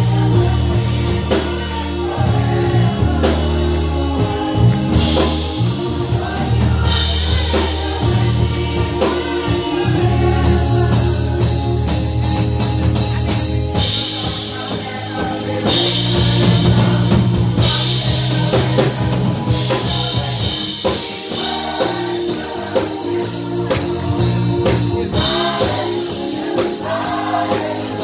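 Church choir singing a gospel song, backed by a drum kit and keyboard with a strong bass line.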